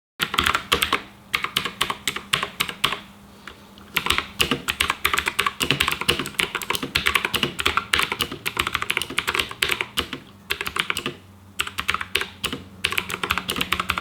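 Typing on the Armaggeddon MKA-8C Psych Raven mechanical keyboard, whose clicky Content Blue (65 g) switches give fast, dense clicking in bursts with brief pauses.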